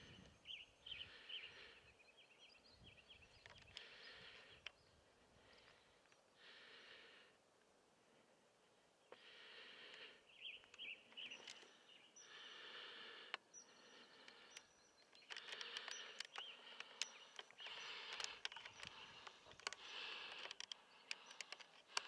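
Faint close-miked breathing of the person holding the camera to their face, a soft breath every second or two, with a few faint high chirps and light ticks.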